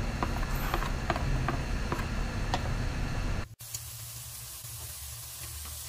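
Diced potato and carrot sizzling in hot oil with sautéed onion in a wok, with scattered light clicks. About three and a half seconds in, the sound drops abruptly to a quieter sizzle.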